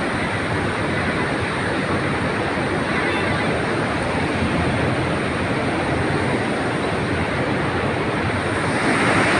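Steady rushing noise of a river in flood running under a road bridge.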